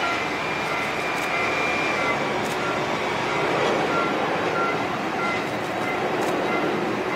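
Boeing 747-400 jet engines running at low taxi power: a steady rushing noise with a high whine, while short beeps repeat from apron equipment.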